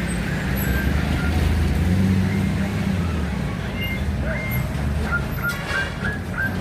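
Road traffic: engines of passing vehicles running with a steady low rumble that swells about two seconds in. A run of short, high chirps repeats near the end.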